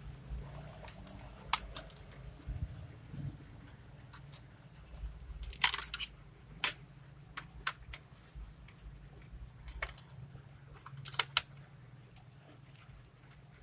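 Scattered small clicks and light knocks of Lenovo G470 laptop parts being handled during disassembly. The loudest clusters come about six seconds in and again about eleven seconds in, over a faint low hum.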